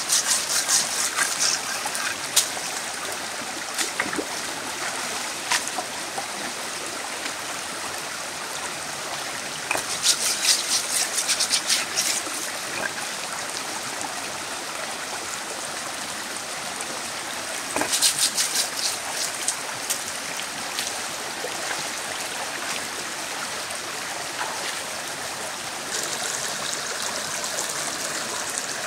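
Steady rushing of running water, broken by bursts of sharp crackling near the start, about ten seconds in and about eighteen seconds in.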